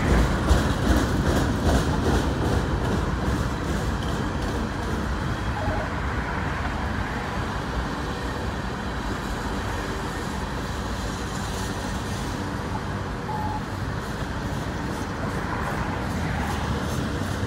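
CN freight train cars rolling past: steel wheels rumbling steadily on the rails, with sharp clacks over the rail joints in the first couple of seconds.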